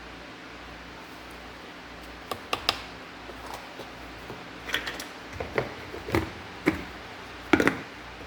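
Light clicks and knocks of kitchen utensils against a blender jar, scattered irregularly over several seconds, the loudest pair near the end.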